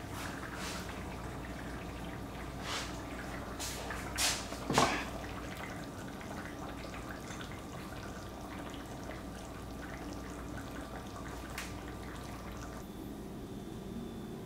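A few knocks and clunks of kitchenware, the loudest about five seconds in, as a heavy earthenware pot is set down on a wooden cutting board. A faint steady kitchen background with a small click later on.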